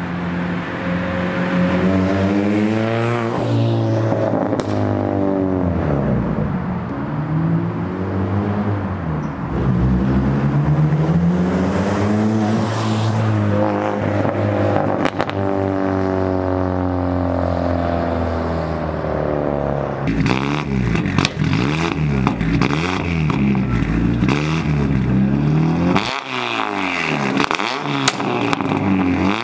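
Turbocharged Chevy Cruze 1.8 four-cylinder running through a 3-inch stainless turbo-back exhaust, accelerating past in drive-bys, its engine note rising and then falling away as it passes. About two-thirds through, the exhaust is heard close up at the tailpipe, revved up and down repeatedly.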